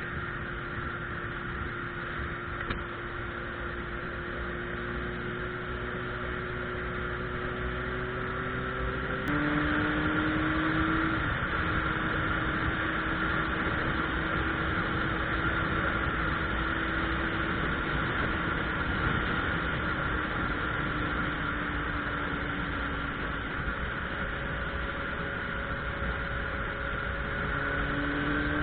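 Suzuki Bandit 1200's inline-four engine running on the move, over a steady rush of wind noise. About nine seconds in the engine note drops suddenly in pitch and gets louder, then sinks slowly and climbs again near the end.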